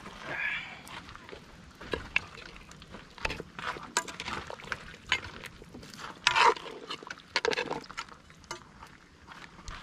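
Metal ladle stirring simmering broth and clinking against an aluminium cooking pot, in irregular knocks and scrapes. A few short, louder calls come in between, the loudest about six and a half seconds in.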